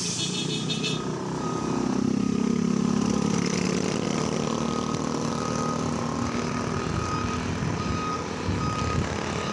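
Semi-trailer tanker truck reversing: its diesel engine runs with a steady low rumble, heaviest a couple of seconds in, while its reversing alarm beeps repeatedly over it.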